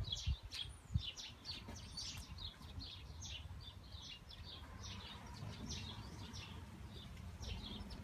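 Indian ringneck parrots giving rapid, repeated short high chirps over a steady low rumble. Two sharp knocks sound in the first second.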